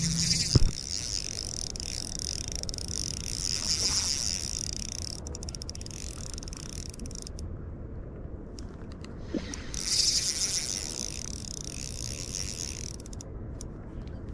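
Spinning reel being cranked, a fast ticking whir as the line is wound in, in two spells a few seconds apart. A sharp knock about half a second in, from the rod or camera being handled.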